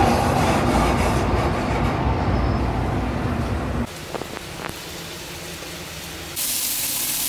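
A loud, steady rumble that cuts off suddenly about four seconds in. A quieter stretch with a few soft taps follows, and near the end a steady sizzling hiss of scallops frying in a pan starts.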